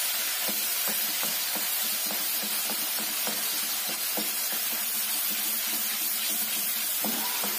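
Tomato and green chilli paste sizzling in hot oil with browned onions in a kadai, stirred with a wooden spatula that makes irregular light clicks against the pan.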